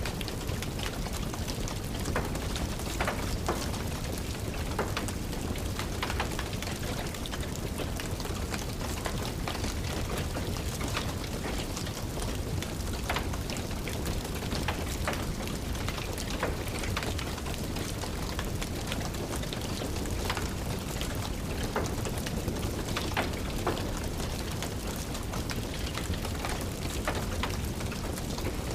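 Steady rain with a wood fire crackling over it, many irregular sharp pops and snaps scattered throughout.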